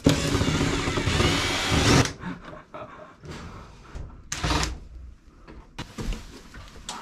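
Cordless drill/driver running for about two seconds, then a brief second burst, backing out the screws that hold the drain pan of a ceiling cassette air conditioner.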